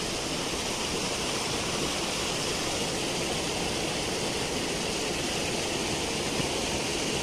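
Shallow stream water running steadily through a narrow channel, an even rushing sound.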